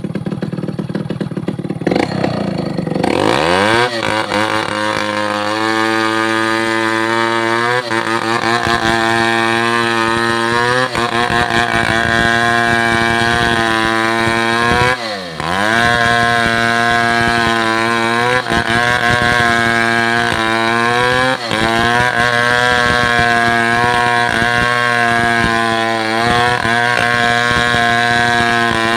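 Two-stroke chainsaw engine revved up to full throttle about three seconds in and held at high speed. Its pitch dips sharply and recovers about halfway through, with a few smaller dips elsewhere.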